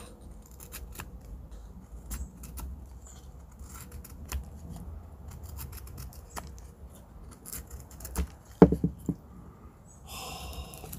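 Buck 110 folding knife's hollow-ground blade whittling shavings off a wooden stick: a series of short scraping cuts, with one louder sound near the end.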